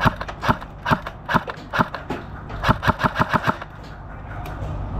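Airsoft rifle firing: single shots about every half second, then a quick string of about seven shots around three seconds in.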